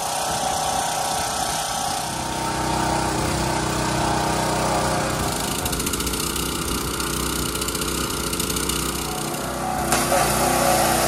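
Gas-engine pressure washer running steadily, its small engine running under the hiss of the spray jet washing down canvas tent canopies. The sound grows a little louder near the end.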